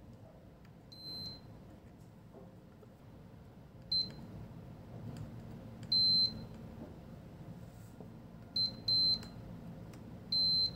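Sanwa digital multimeter beeping in continuity mode as its probes touch connected points on a laptop motherboard. About six high, steady beeps, some very short and some held for about half a second; the loudest comes about six seconds in.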